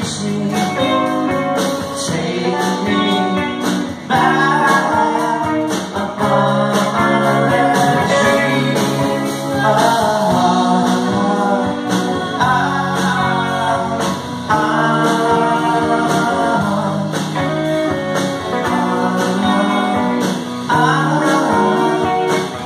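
Live rock band playing at full volume: electric and acoustic guitars, bass and a drum kit, with a lead vocal over the top.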